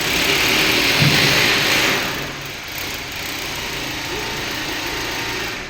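A machine running steadily with an engine-like noise, louder for the first two seconds and then settling to a steadier, slightly quieter run.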